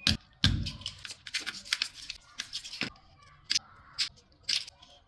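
Hand tools working electrical cable: a run of sharp, irregular clicks and snips, about a dozen, thinning out in the last second or two.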